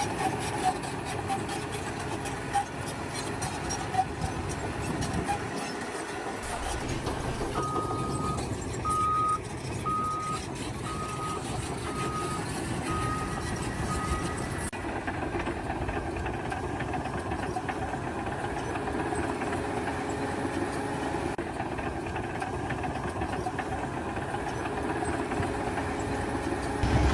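A heavy vehicle's engine running steadily, with its reversing alarm beeping seven times, about once a second, in the middle of the stretch.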